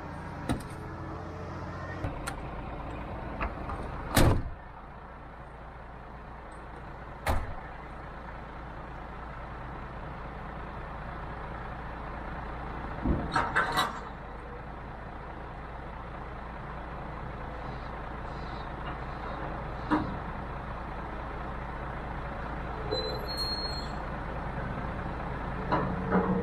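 Articulated lorry's diesel engine running steadily, heard from inside the cab, with a few sharp clunks and rattles. The loudest comes about four seconds in and a quick cluster follows around thirteen seconds.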